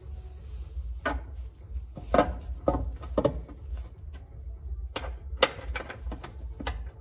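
A pressed metal heat shield knocking and clinking against the underbody of a Mercedes-Benz W126 560SEC as it is held up and fitted by hand: a string of sharp knocks, most of them in two clusters about two and five seconds in.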